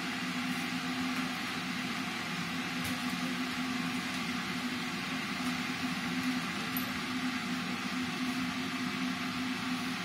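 Steady machine hum over a constant hiss, with one faint click about three seconds in.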